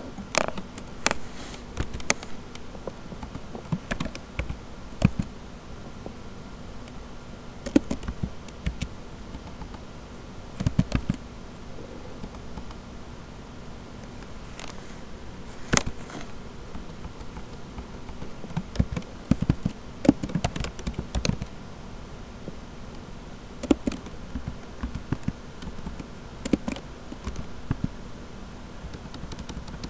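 Computer keyboard being typed on in short, irregular bursts of key clicks, over a steady background hum.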